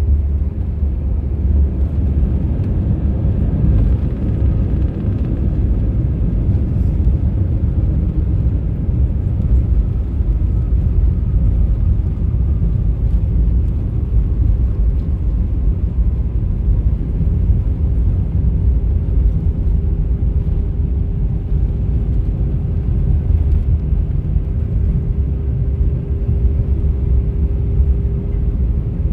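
Cabin noise of an Airbus A319-112 taxiing after landing: a steady low rumble from its CFM56 engines and the wheels rolling on the taxiway, with a faint steady hum that grows a little louder near the end.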